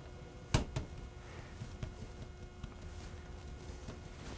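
Two quick knocks about half a second apart as hands press and pat pasta dough flat on a wooden cutting board, followed by faint handling sounds.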